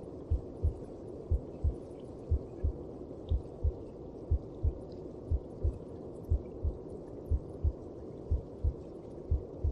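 A mother's heartbeat as heard from inside the womb, slow and steady: a double thump (lub-dub) about once a second over a steady low whoosh.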